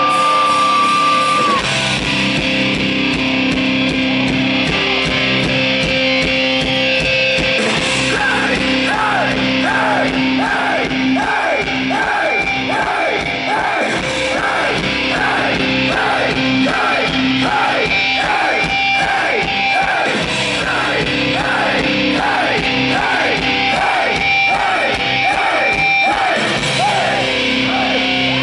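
Hardcore punk band playing live: electric guitar, bass guitar and drums with vocals. A steady high tone sounds for the first second and a half before the full band comes in.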